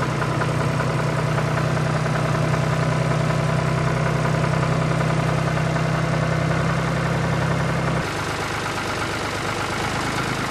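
Steady low mechanical hum of a small motor running, the sound of the toy tractor; about eight seconds in its strongest low tone drops out and the hum continues thinner.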